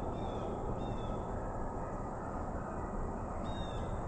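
Steady running noise of a vehicle driving slowly along a sandy dirt road, with three short high-pitched chirps over it: at the start, about a second in, and near the end.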